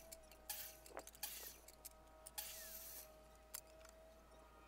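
Near silence: a faint steady hum held for about four seconds, with a few soft clicks.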